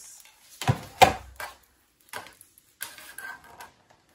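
Handling knocks and clicks as a part is tried on a sewing machine. A sharp knock comes about a second in, then a few lighter clicks and rattles follow.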